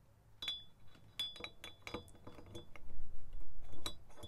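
Camshaft being slid by hand into a motorcycle cylinder head, giving a series of light metallic clinks and ticks, several with a short bright ring. A louder dull rumble of the head being handled comes about three seconds in.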